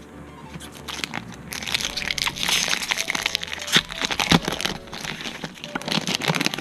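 Foil Pokémon booster pack wrapper being crinkled and torn open by hand: a dense run of crackling that builds about one and a half seconds in.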